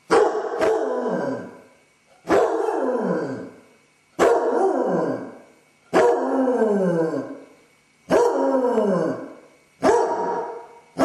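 Basset hound howling, six drawn-out calls about two seconds apart, each starting sharply and sliding down in pitch. It is the distress call of a dog left home alone, which the owner takes for separation anxiety.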